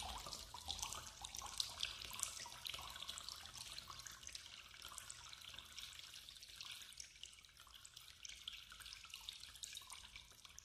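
Faint water trickling and dripping, with many small irregular drips that fade away gradually.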